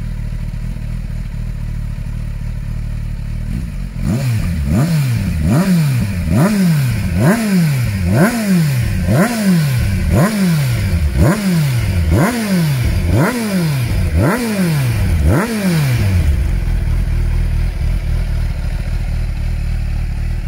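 2020 Kawasaki Ninja 1000SX's inline-four engine running through a de-cat exhaust: idling, then blipped about a dozen times, roughly once a second, each rev rising sharply and dropping back, before settling back to idle near the end.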